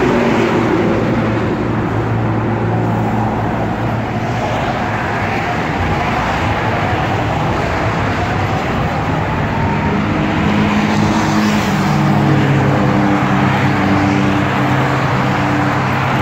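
LA Metro Siemens P2000 light rail train pulling out of the station and passing close by, its electric drive giving a whine that rises in pitch as it picks up speed, over steady freeway traffic noise.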